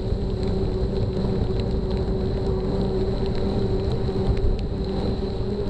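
Wind rushing over a bike-mounted camera's microphone while cycling on a wet path, with a steady hum and scattered faint ticks.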